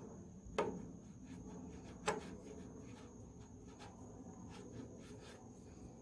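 Two sharp clicks about a second and a half apart as a hand tool is worked at the flywheel hub and stuck gib key of an International Type M engine, with light rubbing in between.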